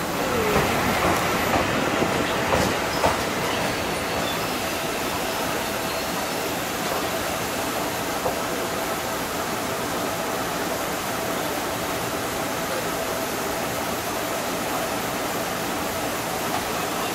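Seibu 30000 series electric train moving slowly away along the depot track: steady running noise with a thin, steady hum, and a few clicks in the first few seconds.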